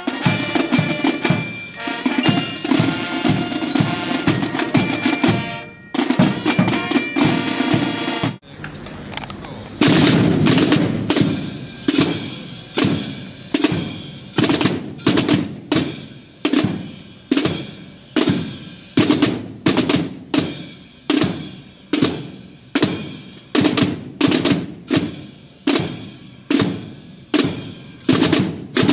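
Marching band of brass and snare drums playing a tune. After a sudden break about eight seconds in, the drum line of snare drums and bass drum plays a cadence alone, with a heavy accent about once a second.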